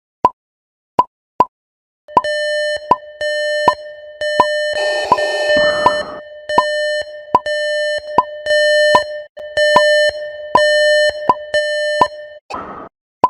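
Electronic alarm buzzer beeping at one steady pitch in a run of long pulses, starting about two seconds in and stopping near the end. It sounds over a string of short plop-like clicks that come every half second or so.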